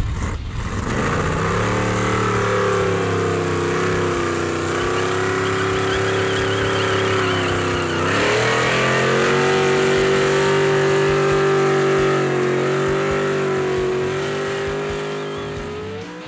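V8 car engine running hard at fairly steady revs. The pitch dips and climbs back about halfway through, and the sound fades near the end.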